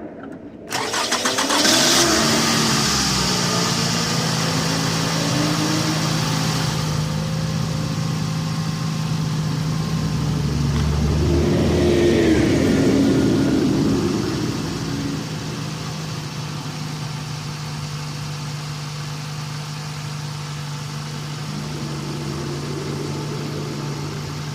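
2006 Toyota Camry's 2.4-litre four-cylinder engine cranked by the starter, catching about a second in, flaring up and falling back to a steady idle, with a brief rise in revs around halfway. It idles evenly without shaking, its cylinder 2 misfire cured by new spark plugs and a new coil.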